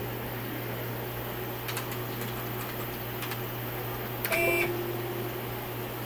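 CNC 3020 router's stepper drive humming steadily, with a few light clicks and, about four seconds in, a brief whine as the Y axis jogs.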